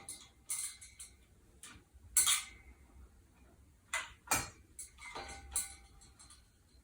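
Irregular light clicks and clinks of small hardware and wires being handled during wiring work, about half a dozen in a row, the loudest a short clatter about two seconds in.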